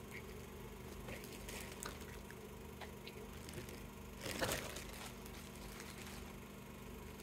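Faint handling and rustling noises, with a few light clicks and one brief louder rustle about four and a half seconds in, over a steady low hum.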